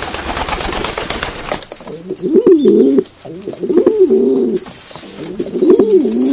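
Pigeon cooing: three rolling, wavering low coos from about two seconds in, after a second and a half of noisy hiss.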